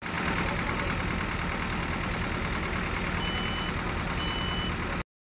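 Kobelco excavator's diesel engine running hard and steady, its common-rail injectors failing from poor-quality diesel. Two short high beeps about a second apart come near the end, and the sound cuts off suddenly.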